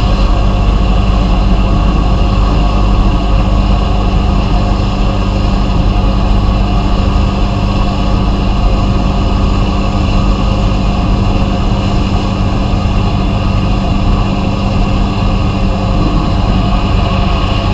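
Abrasive blasting equipment running steadily: a continuous loud hiss over a low machine hum, unchanging throughout.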